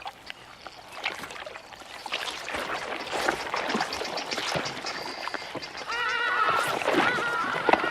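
Thick mud sloshing and squelching with scattered wet clicks as a crocodile swings her head through it. From about six seconds in, a run of short, wavering, high-pitched animal calls comes in over it.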